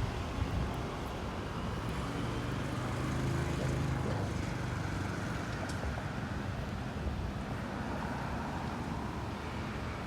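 Road traffic noise, with a motor vehicle's engine passing by, loudest about three to four seconds in.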